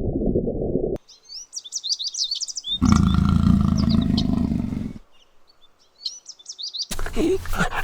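Small birds chirping, a rapid run of short high chirps, broken for about two seconds by a loud low rumbling noise. Near the end a dog starts barking.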